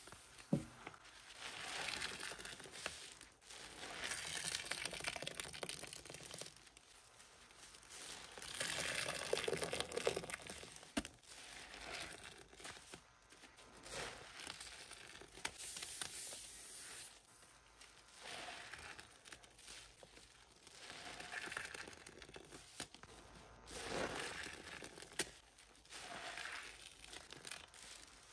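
Foam-soaked sponges squeezed and wrung in a bath of pink cleaning-powder and dish-soap suds, a wet noisy swell with each squeeze, repeated every couple of seconds.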